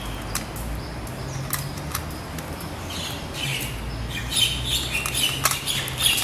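A cat crunching dry kibble from a small bowl, making irregular crisp clicks, with short high chirps mixed in, busier in the second half.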